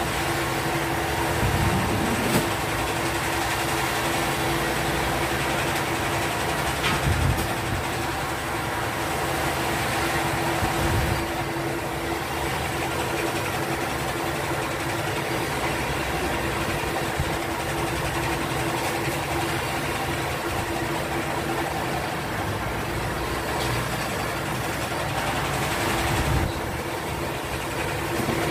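Steady mechanical hum with one constant tone, like a motor running. A few light knocks come through it from the aluminium window frame being handled.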